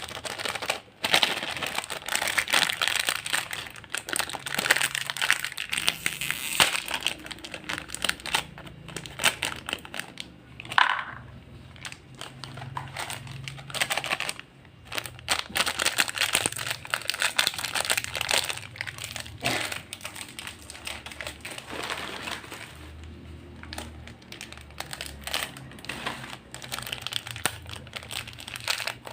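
Plastic snack packets crinkling as they are handled, with a few short pauses.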